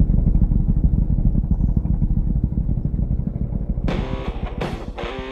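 Off-road vehicle engine running loud with a rapid low pulsing exhaust note. About four seconds in, rock music with guitar and drums cuts in abruptly over it.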